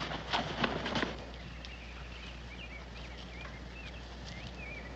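A few short knocks or rustles in the first second, then small birds chirping repeatedly in short up-and-down notes over a quiet outdoor background.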